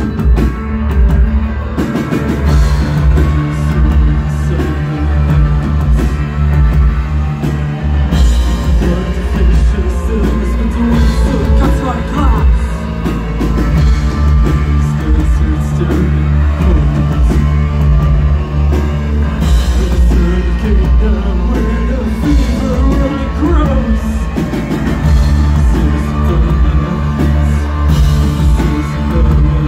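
A post-punk rock band playing live and loud: a singer's voice into a microphone over drums, electric guitar and a heavy, steady low end, as heard from within the audience.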